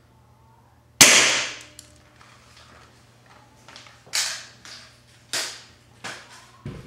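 VSR-10 spring-powered bolt-action airsoft rifle firing a BB with one sharp crack about a second in, followed by four quieter sharp clacks.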